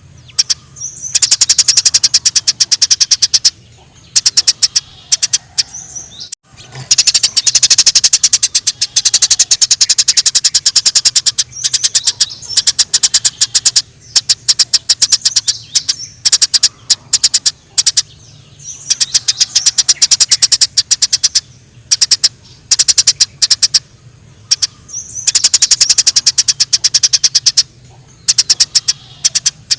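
Eurasian tree sparrows chirping in fast, excited runs of sharp chirps, the agitated 'fighting' chatter of the species. The chirping comes in loud bouts of a few seconds with short pauses between them.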